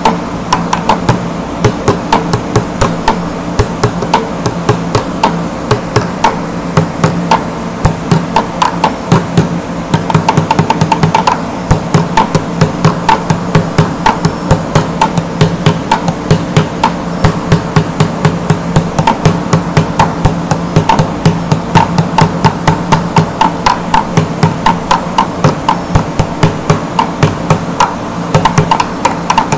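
Bucket drumming: plastic buckets struck in a fast, steady rhythm with regular louder accents.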